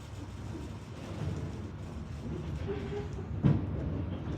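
Low, steady rumble of a passenger train under way behind a diesel locomotive, with one sharp clunk about three and a half seconds in.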